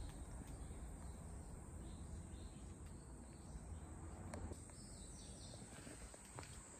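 Quiet forest ambience: a faint steady outdoor hiss with a few distant bird chirps in the middle and a few soft footsteps on a path.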